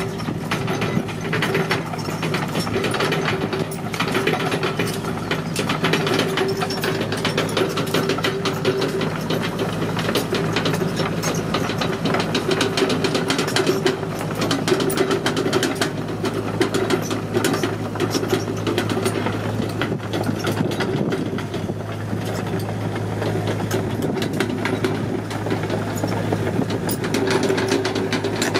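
CAT 312 excavator's diesel engine running steadily, with a dense, rapid mechanical clatter over it.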